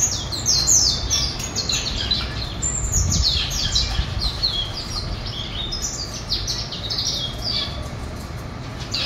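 A male songbird singing a fast, continuous twittering song of quick, high notes, many of them sliding downward, over a low background hum.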